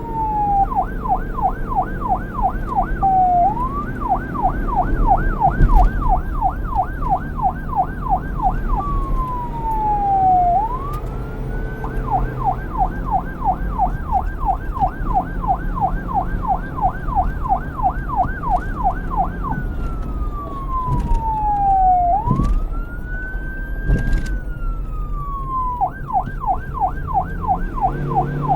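Police car electronic siren alternating between a fast yelp, about five up-and-down sweeps a second, and slow wail glides that fall and then rise again, several times over. A steady low rumble runs underneath.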